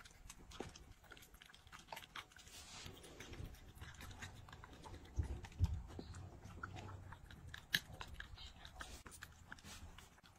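A Shiba Inu eating from a hollowed-out squash bowl: steady small chewing clicks and smacks, with a few heavier dull knocks about halfway through.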